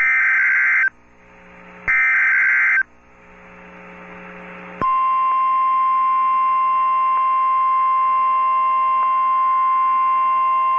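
Emergency Alert System tones for a tornado warning on weather radio. First come two short, loud warbling data bursts of the SAME header, about a second apart, with hiss between them. Nearly five seconds in, the steady single-pitched 1050 Hz warning alarm tone starts and holds.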